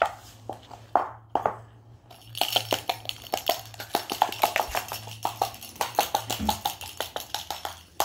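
Cockatoo's claws and feet tapping and clicking on a hard laminate floor as it moves about: a few separate taps at first, then from about two seconds in a fast, busy clatter of clicks.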